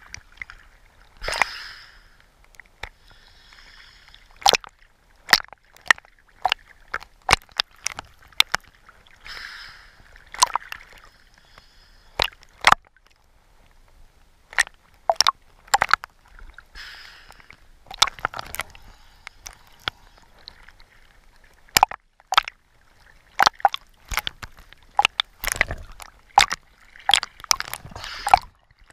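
Underwater sound picked up by a camera moving over a coral reef: water sloshing and swishing, broken by many irregular sharp clicks and crackles.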